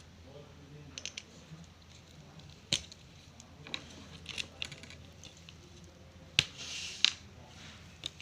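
Scattered clicks and small knocks of hand work on an opened laptop, with a short hissing scrape about two-thirds of the way through.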